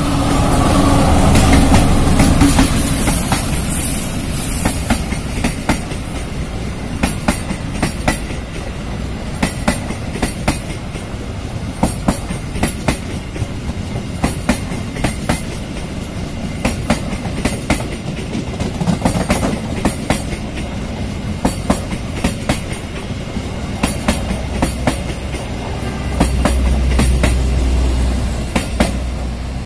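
A CC 203 diesel-electric locomotive passes close by with its engine running, loudest in the first few seconds. A train of stainless-steel passenger coaches then rolls past with a steady clickety-clack of wheels over rail joints. Near the end a low hum swells as the train's generator car goes by.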